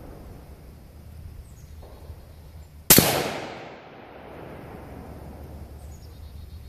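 A single rifle shot about three seconds in: one sharp crack whose report trails off over about a second.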